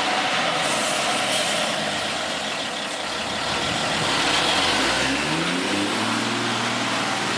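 Csepel D566 truck's diesel engine running close by, with a short hiss about a second in, then the engine revving up, its pitch rising, about five seconds in.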